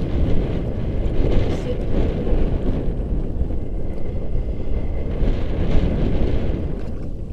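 Wind buffeting the microphone in a steady low rumble, with light splashing of hands working a mesh shrimp trap in shallow water, twice a little louder.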